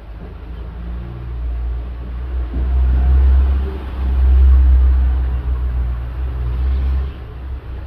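A deep, loud rumble, like a vehicle's engine, that builds to two swells about three and four and a half seconds in, then eases off near the end.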